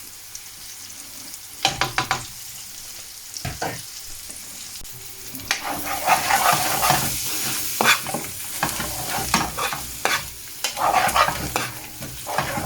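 Curry sizzling in a pan as a spoon stirs and scrapes through it. A few knocks come in the first four seconds, and the stirring grows busier and louder from about halfway.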